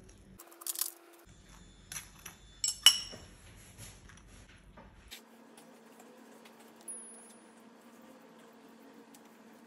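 A metal spoon clinking and scraping against a small ceramic bowl, a few sharp ringing clinks with the loudest about three seconds in. From about five seconds in only a faint steady hum remains.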